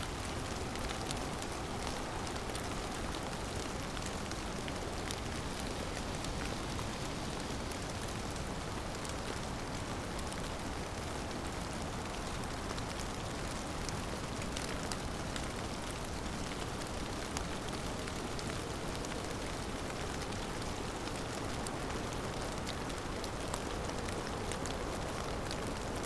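Steady heavy rain from a storm, an even downpour with fine drop ticks scattered through it.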